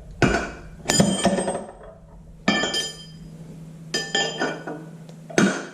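Hammer blows on a punch driving a worn tapered-roller bearing race out of a Farmall Super MTA front wheel hub: about eight sharp metallic strikes at uneven intervals, each ringing briefly.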